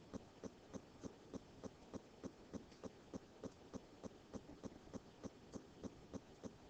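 Faint, evenly spaced ticking, about three to four ticks a second, over near silence.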